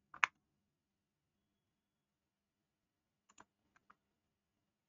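Computer mouse and keyboard clicks: one sharp click a quarter second in, then a few faint clicks about three and a half seconds in, with near silence between.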